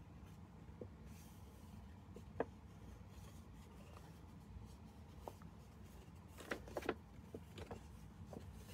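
Faint handling of sheets of patterned paper on a craft mat: a few soft taps and paper rustles, with a small cluster of them about six to seven seconds in as one sheet is swapped for another.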